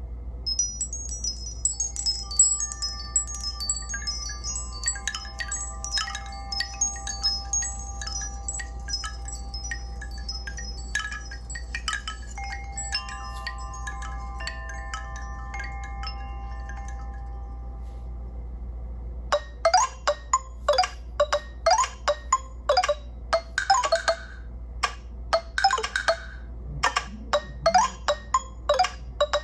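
Nokia Lumia 1520's built-in Windows Phone 8 ringtones playing one after another. The first is a chime-like tune of quick, high twinkling notes over a few held lower tones, ending about eighteen seconds in. After a brief pause, a second ringtone of rapid, sharply struck notes begins.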